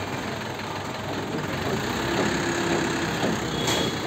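Diesel engine of an Escorts F15 pick-and-carry crane running steadily while the crane holds a suspended load, with a short sharp click near the end.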